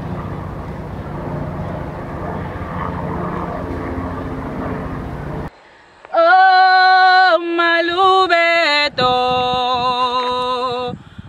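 A steady low rumbling background noise cuts off suddenly about halfway through. Women's voices then take up a traditional Setswana song unaccompanied, singing long held notes that step up and down in pitch.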